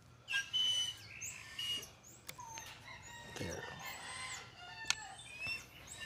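A rooster crowing, one call held for about two seconds in the middle, among many short, high chirps of small birds.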